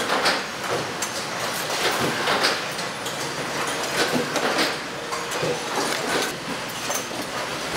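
Oil-filter production line machinery running, with repeated metallic knocks and clatter over a steady background noise.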